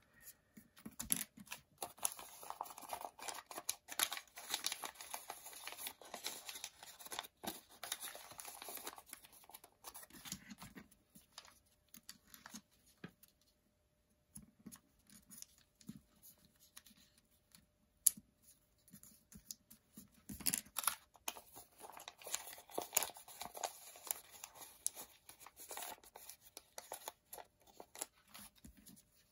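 Origami paper rustling and crinkling as it is folded and creased by hand. The rustle is busiest through the first ten seconds and again from about twenty seconds, and sparser in between.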